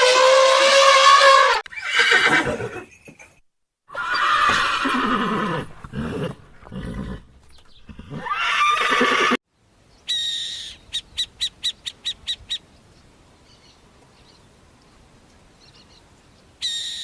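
Horse whinnying several times, loud calls some of which fall in pitch. About ten seconds in, a high thin call is followed by a quick run of about ten short pulses.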